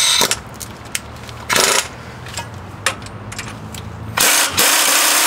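Pneumatic air tool working on the steering knuckle of a 2002 Ford F-350 front axle, used to break the knuckle's ball joints loose. It comes in two short bursts, then runs in a longer loud spell from about four seconds in.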